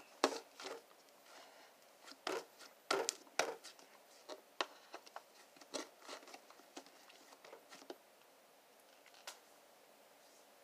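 Butter slime being pressed and pulled by hand: a string of short, sticky clicks and pops that thin out after about eight seconds.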